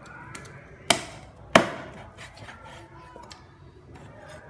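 A cleaver chopping a whole raw chicken on a round wooden chopping block. Two hard chops come about a second in, a little over half a second apart, followed by a few lighter knocks.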